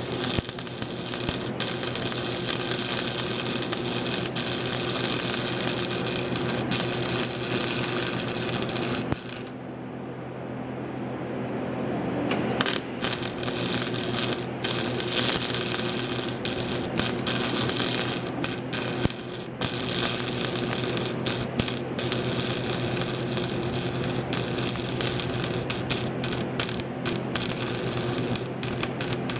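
Welding arc crackling and sizzling steadily over a low electrical hum. The crackle breaks off for about three seconds near the middle, then starts again.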